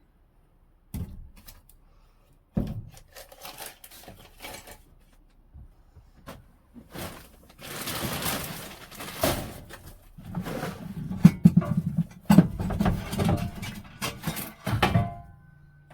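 Things being shifted around inside a small garden shed: irregular knocks, clatters and scrapes, becoming a busy run of thuds and knocks in the last few seconds.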